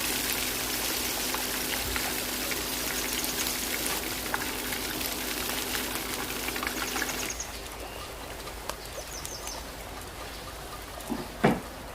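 Chicken drumsticks deep-frying in hot oil, a dense sizzle full of small crackles. About seven seconds in the sizzle drops abruptly to a quieter crackle with scattered pops, and a short, louder sound comes near the end.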